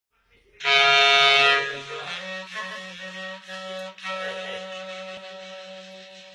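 Greek folk clarinet (klarino) music: a loud, long held opening note about half a second in, then a quieter ornamented melody over a steady low held note.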